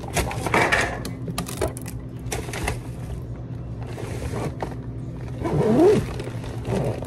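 Fabric tote bag being handled, packed and lifted: irregular rustling and bumps of the bag and its contents, over a steady low hum.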